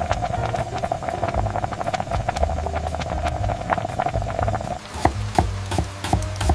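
Steady rain with soft background music; about five seconds in the rain cuts off and sharp, light taps begin, like knocks on a wooden board.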